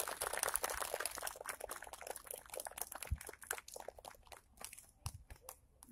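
Applause from a small crowd of clapping hands, dense at first and thinning out to a few scattered claps near the end.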